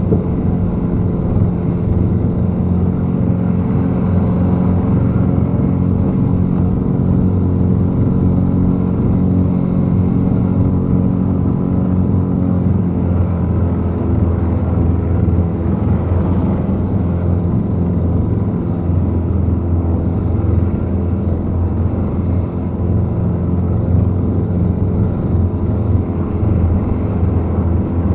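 Small boat's motor running with a steady drone, its upper hum easing slightly about halfway through. The motor still pushes the boat along slowly though its drive is thought to have spun a gear.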